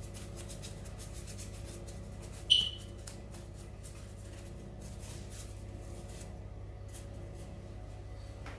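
A steady low hum with faint light ticks, and one sharp clink of kitchenware about two and a half seconds in, ringing briefly.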